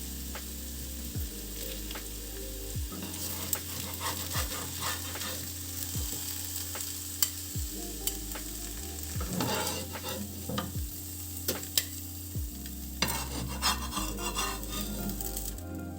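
Food sizzling in a frying pan while a utensil stirs it, with scattered clicks and scrapes against the pan.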